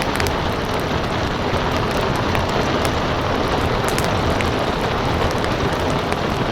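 Steady rain hissing, mixed with a fireplace crackling: scattered sharp pops and snaps over the even wash of the rain.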